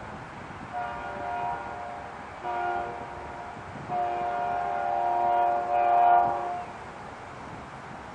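Approaching train's air horn sounding the end of a grade-crossing signal: a blast, a short blast, then a long blast that grows louder.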